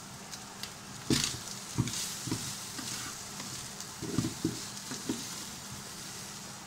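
Diced ham sizzling in a frying pan while a wooden spatula stirs it, scraping and knocking against the pan several times.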